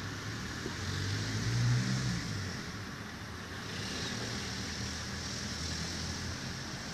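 Road traffic: a car engine hum that swells about a second and a half in and fades again, over a steady outdoor hiss.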